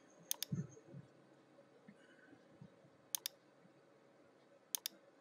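Computer mouse clicking, faint: three quick pairs of clicks, just after the start, about three seconds in and near the end, as points of a section line are picked in the CAD program. A soft low thump follows the first pair.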